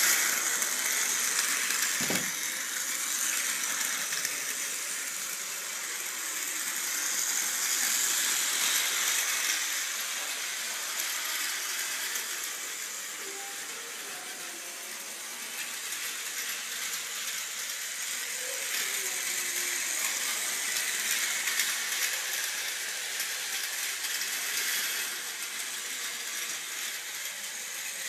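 Battery-powered Plarail toy train running on plastic track: a steady, high rattling whir from its small motor and gears that slowly swells and fades. A single knock about two seconds in.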